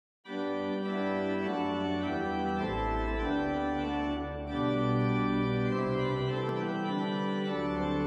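Background music of sustained organ chords, starting a moment in, with the bass note changing every two seconds or so.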